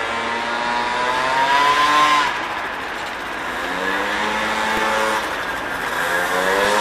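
A motor vehicle engine accelerating through the gears: its pitch rises for about two seconds, drops sharply at a gear change, then climbs again, with another shift about five seconds in. Steady traffic hiss lies beneath it.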